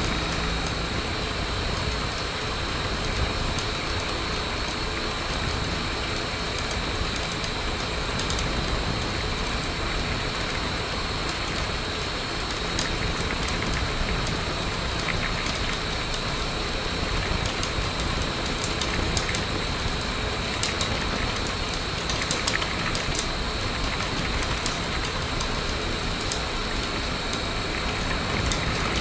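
Hacker A60-16L brushless electric motor driving a homemade six-blade propeller at a steady speed on a test stand: a constant rush of prop wash with a high, even whine, and a few faint clicks from the rig later on.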